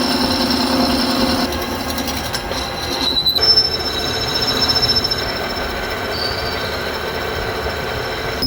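Lathe cutting a workpiece: a steady high-pitched squeal from the cutting tool over the machine's running noise. The squeal shifts pitch about three and a half seconds in.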